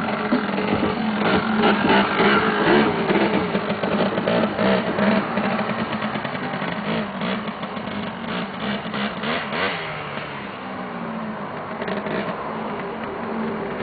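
Small quad bike's engine running and revving, its pitch rising and falling as it is ridden.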